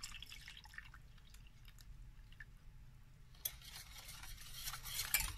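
Milk trickling faintly into a small stainless steel saucepan with scattered drips, then about three and a half seconds in a wire whisk starts stirring and scraping in the pan, growing louder.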